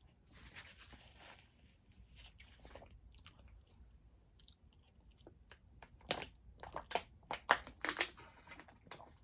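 Close-up chewing of a vegetarian burrito, with soft wet mouth sounds and a quick run of sharp crunchy clicks about six to eight and a half seconds in.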